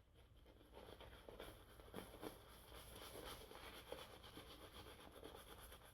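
Faint, irregular swishing of a shaving brush working thick lather from Antica Barbieria Colla shaving soap.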